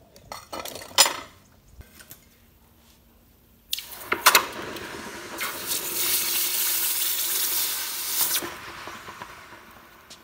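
A couple of sharp metal clinks about a second in, then a hot aluminium ingot plunged into a bucket of water, hissing and bubbling as it quenches. The hiss starts suddenly about four seconds in, is loudest in the middle and dies away near the end.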